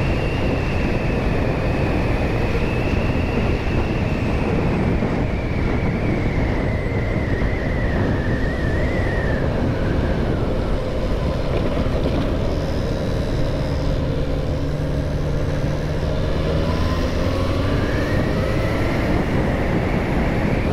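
Motorcycle on the move, engine running under a steady rush of wind and road noise. A high whine drops slowly over the first half as it slows, the engine note holds steady for a few seconds in the middle, then climbs again near the end as it speeds up.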